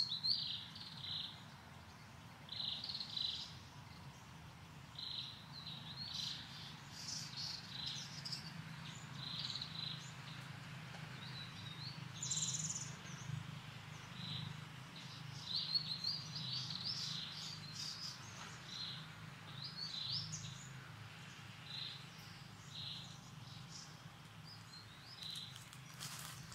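Small birds chirping: short high calls in quick clusters every second or two, over a low steady hum.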